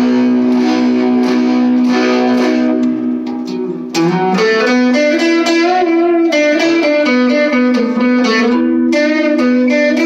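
Electric guitar through an all-tube amp with the gain at full, played on the neck pickup with the guitar's volume or tone knob rolled down, giving a cleaner tone. One low note rings throughout while other notes move and bend above it; about four seconds in the playing changes and the notes ring clearer.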